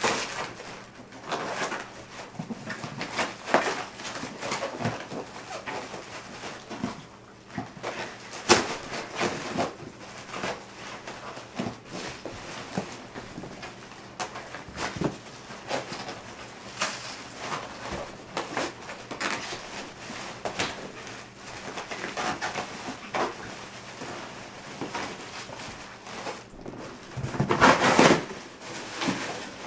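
A cardboard shipping box being broken open and its tight packing pulled apart by hand: irregular tearing, scraping, rustling and knocks, with a longer, louder stretch of tearing near the end.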